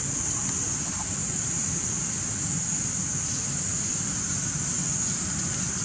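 A steady, high-pitched insect drone, unbroken throughout, over a low, even rumble.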